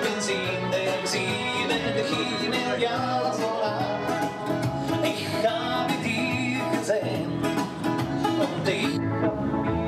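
Country-style dance music with a steady beat, played live by a bar musician for couples dancing. The treble drops away about nine seconds in.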